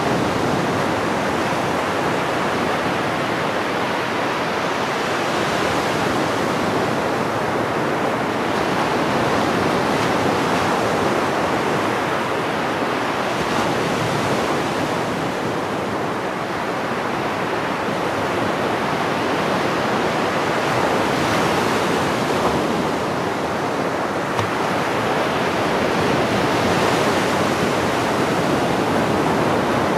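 Ocean surf breaking and washing in on a beach: a continuous rush of water whose hiss swells every several seconds as each wave breaks.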